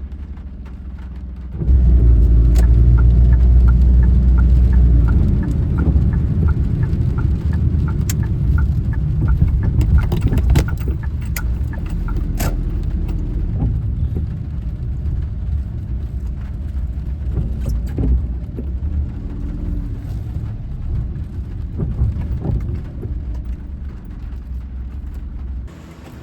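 Car being driven, heard from inside: a steady low rumble of engine and road noise that jumps louder a couple of seconds in. Soon after the jump comes a regular ticking, about two a second, lasting several seconds, and a few sharp knocks come near the middle.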